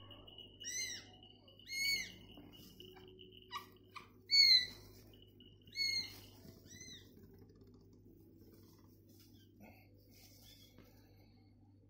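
Week-old kitten mewing: about five short, high-pitched cries, each rising and falling, in the first seven seconds, the loudest about four and a half seconds in.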